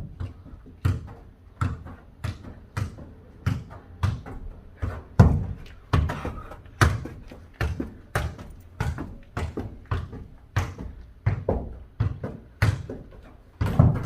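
Football kicked back and forth and bouncing on the floor in a mini foot-volleyball (jokgu) rally: a steady run of dull thuds, about one and a half a second.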